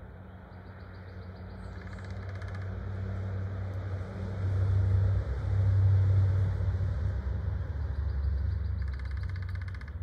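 A car passes on a road, its engine and tyre noise swelling to a peak about five or six seconds in and then fading away.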